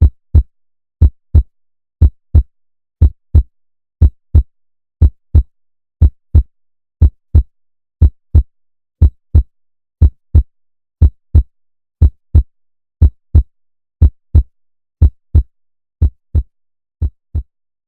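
Human heartbeat sound effect: steady lub-dub pairs of low thumps (S1 and S2), one pair every second, a normal rhythm of 60 beats a minute. The beats grow fainter near the end.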